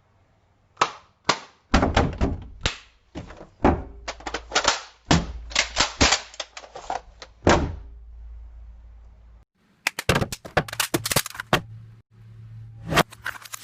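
Cups knocked and tapped against a hard surface in quick, irregular runs of sharp clacks. The clacks come in three separate clusters with short pauses between them.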